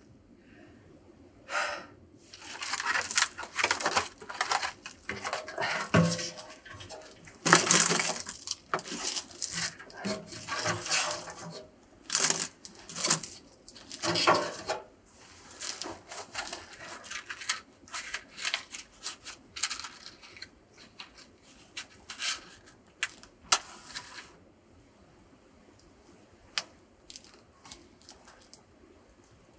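Kindling and firewood being rustled, snapped and knocked into a small steel wood-burning stove, with clinks against the metal, for about twenty seconds. After that only sparse faint crackles as the newly lit fire catches.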